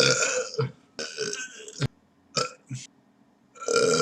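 A man belching after drinking beer: several loud burps, one at the start, another about a second in and a third near the end, with a sharp click just before two seconds in.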